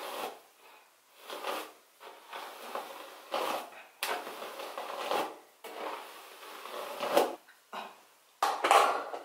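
A plastic detangling brush dragged again and again through thick, curly natural hair, brushing out a ponytail. It comes as a string of uneven brush strokes, roughly one a second, each a short rush of noise.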